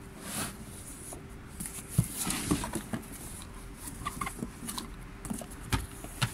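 Unboxing handling sounds: cardboard rustling and scraping as a plastic submersible pump and its coiled power cable are pulled from the box, with a few sharp knocks, the loudest about two seconds in and near the end. A faint steady hum runs underneath.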